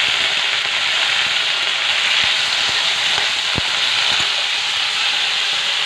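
Chopped tomatoes and onions sizzling in hot oil in a steel kadhai, with a steel spatula scraping and knocking against the pan a few times as they are stirred.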